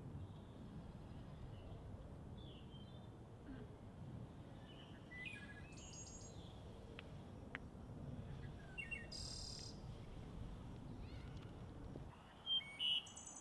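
Outdoor ambience: birds chirping and calling now and then over a steady low rumble, with two sharper chirps near the end.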